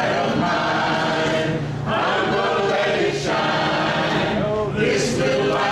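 A women's choir singing in sustained phrases, with brief breaks between phrases about two and three seconds in.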